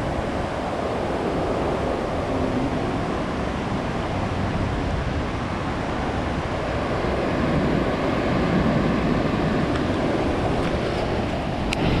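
Pacific Ocean surf breaking and washing up a sandy beach, a steady rush that swells a little about two-thirds of the way through.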